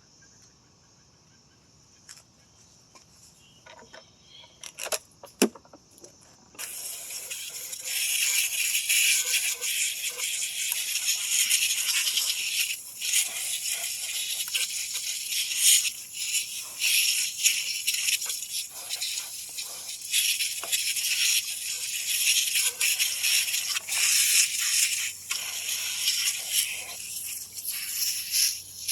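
A few light clicks and knocks of parts being handled, then, about six and a half seconds in, a loud high hiss of spray starts suddenly and runs on with brief breaks.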